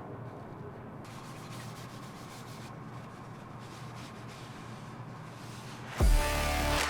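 Steady rubbing, as of wood being hand-sanded. Music starts loudly near the end.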